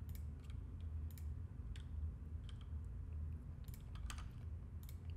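Irregular clicking from working a computer: keystrokes and pointer clicks, about a dozen sharp taps with uneven gaps, over a steady low hum.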